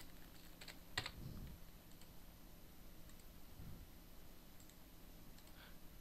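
A few faint clicks from a computer keyboard and mouse, the loudest about a second in, over a low steady hum.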